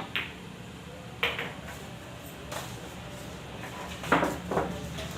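Sharp clicks and knocks of pool balls and cue during play, about five in all, the loudest two close together about four seconds in.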